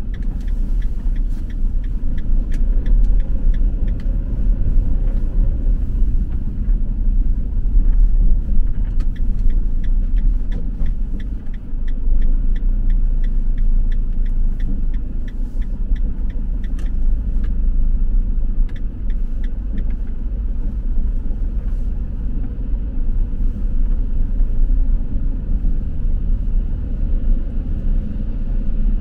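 Vehicle driving in city traffic, heard from inside the cab: a steady low engine and road rumble. For most of the first twenty seconds there are light, rapid ticks.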